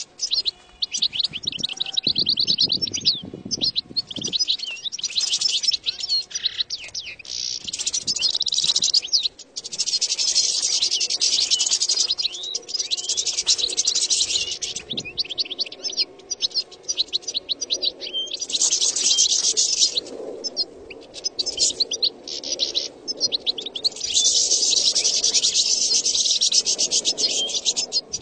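European goldfinch singing: long runs of rapid, high twittering, each lasting a few seconds, broken by short pauses.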